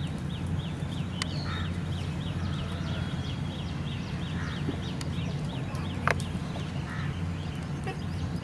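A bird calling in a fast run of short, high repeated notes, several a second, which stops about six seconds in, over a steady low hum. A single sharp click comes about six seconds in.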